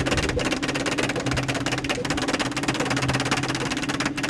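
Braille embosser printing: a fast, continuous clatter of pins punching dots into paper over a steady low motor hum.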